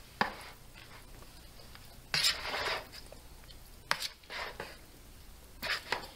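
A spoon stirring chunks of chicken and penne pasta in a large plastic mixing bowl: short scraping, squishing swishes with a few sharp clicks of the spoon against the bowl, about every two seconds.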